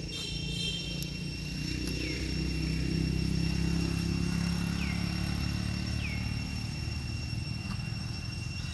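Low rumble of a passing vehicle engine, growing to its loudest about three to four seconds in and then slowly fading. A steady high-pitched whine and three short chirps sit above it.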